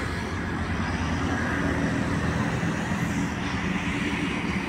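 Steady rumble of road traffic, with a low engine hum from vehicles on the road.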